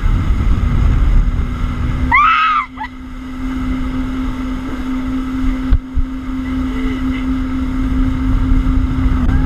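Jet ski running at speed across the water, with wind buffeting the microphone and a steady engine drone. A short high-pitched cry about two seconds in, and a sharp thump around the middle.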